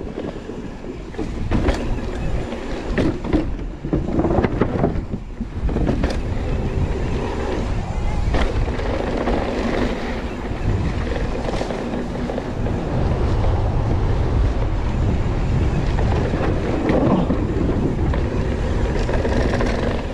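Mountain bike riding down a dirt trail: wind rushing over the microphone and tyres rolling on dirt, with a few sharp clatters over bumps in the first several seconds.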